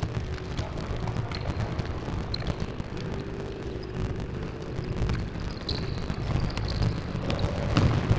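Low, steady rumble of a large sports hall with a faint hum, broken by scattered short high squeaks and taps from players' shoes on the indoor court.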